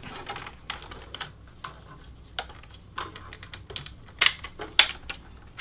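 Irregular light clicks and taps of a desktop computer's hard drive and its cables being handled and unplugged inside the case, with two louder clicks a little past four seconds and near five seconds in.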